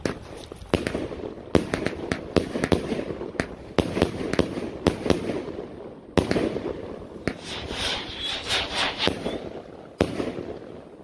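A 100-shot firework cake firing: a rapid, uneven string of sharp shots and aerial bursts, with a dense stretch of crackle about eight seconds in. The last shot comes about ten seconds in.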